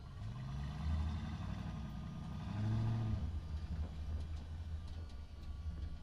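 Heavy truck engine driving, starting suddenly and revving up with a rising pitch about a second in, then again, loudest, around three seconds in, before settling into a steady low rumble.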